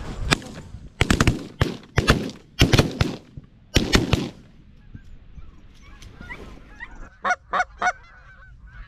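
A rapid volley of shotgun blasts from several shooters, about ten shots in the first four seconds, aimed at geese passing low over the decoys. After a short lull, goose honks follow, with three loud honks in quick succession near the end.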